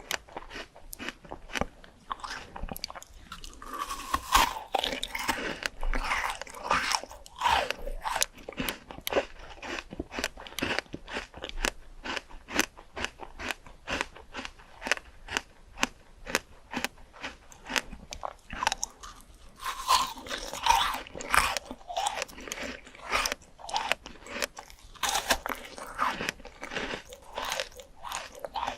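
A person biting and chewing crunchy fresh fruit: a fast, steady run of crunches, with two louder stretches of biting.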